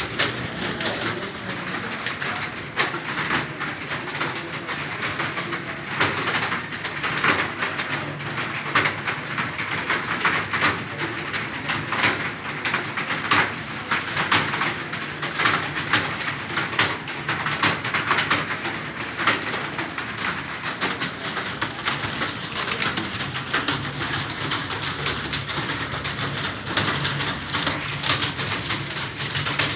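Computer keyboard being typed on fast and continuously, many irregular key clicks, with pigeons cooing in the background.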